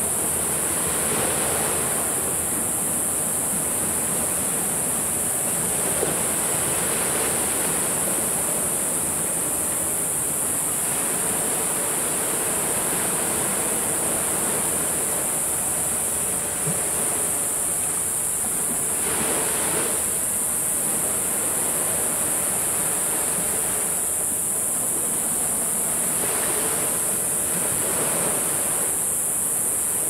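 Sea waves breaking and washing up on a beach: a steady rushing wash that swells every few seconds as waves come in, over a constant high hiss.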